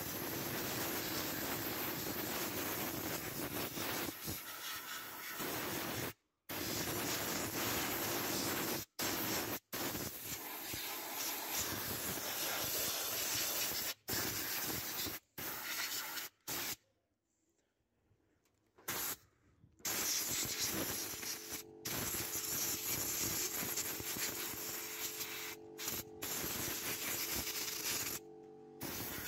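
Compressed air hissing from an old Soviet blow gun as it blows dust out of an opened semi-automatic welder. The hiss stops abruptly again and again as the trigger is released, with one longer break of about three seconds a little past the middle.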